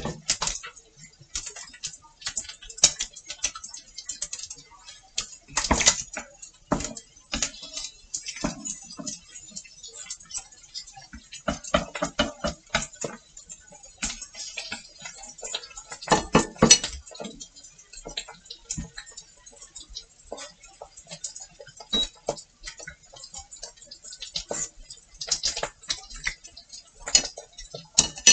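Wooden chopsticks and a wooden spoon tapping and scraping on a plate and a frying pan, in irregular clicks and clinks, busier around the middle.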